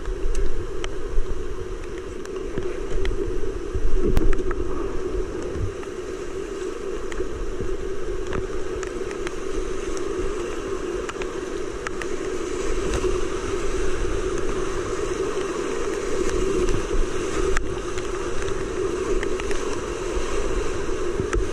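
Whitewater rapids of a high-running creek rushing steadily, with water splashing around a kayak as it is paddled downstream. There are a few sharp knocks in the first four seconds.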